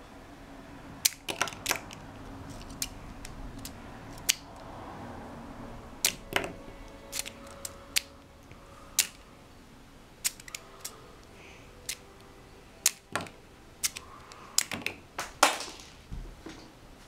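Hard plastic Playmobil figures and toy cannon parts clicking and clattering as they are handled and knocked over: a couple of dozen separate sharp clicks at uneven spacing, some in quick pairs, the loudest near the end.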